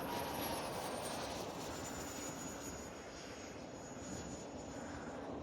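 Electric ducted-fan RC plane in flight, its 50 mm fan on a 6S battery giving a thin high whine that slowly drops in pitch over a steady rushing noise.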